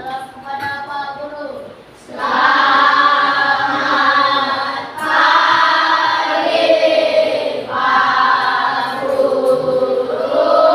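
A group of voices singing together in unison with long held notes, starting loud about two seconds in after a fainter voice.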